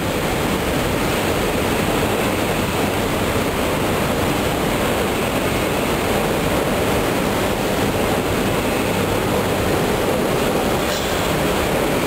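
Steady mechanical rumble of a long escalator running, heard while riding it up out of an underground station.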